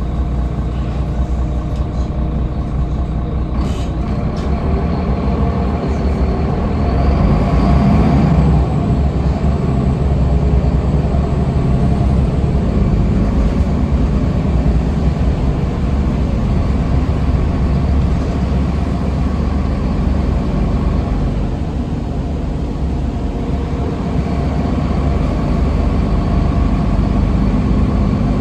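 Solaris Urbino III city bus heard from inside the passenger cabin: its engine drones steadily as the bus drives, the engine note rising and growing louder about seven to nine seconds in, with a few clicks in the first few seconds.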